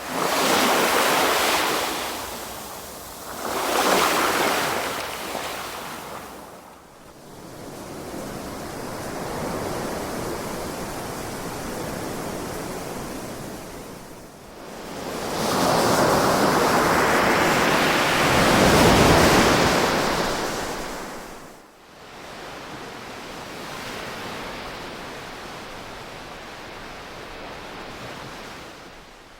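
Ocean waves breaking and washing up the shore: two surges in the first few seconds, a steady quieter wash, then a bigger, longer wave breaking about halfway through before the surf settles again.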